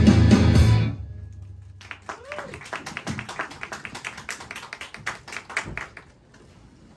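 Loud idol-pop backing track cuts off about a second in. It leaves quiet, scattered claps and taps that die away near the end.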